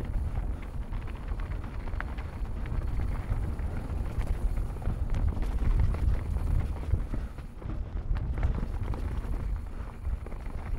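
Wind buffeting the microphone of a camera on a mountain bike rolling down a dirt singletrack, with tyre rumble on the dirt and scattered small clicks and rattles from the bike.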